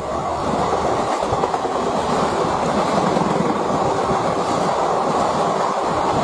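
A train running along the track: a steady, even noise of wheels on rails.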